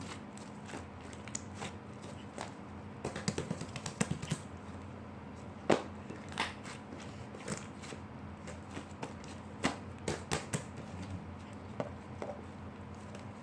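Slime being handled, squeezed and poked, giving irregular small clicks and pops, with busier clusters about three seconds in and again near ten seconds.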